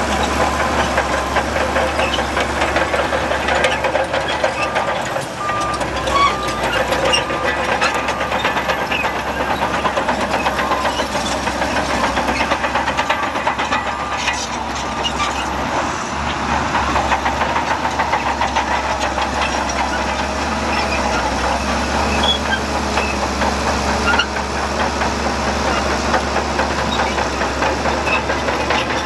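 Diesel engines of heavy earthmoving machinery running steadily, with clatter throughout. A reversing alarm beeps briefly about five seconds in.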